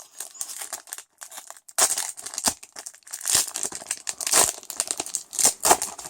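A Pokémon card booster pack's foil wrapper being torn open and crinkled by hand: irregular crackling and rustling with a few louder crackles.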